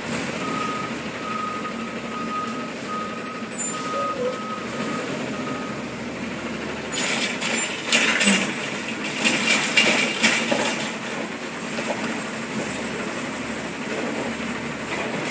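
Garbage truck's backup alarm beeping, a single repeated tone a little over once a second, for about the first six seconds. Then several seconds of loud hissing and clatter from the truck.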